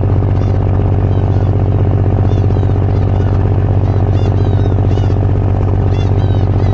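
Ferry's diesel engine droning steadily at a constant low pitch, with short high chirping calls over it every second or so.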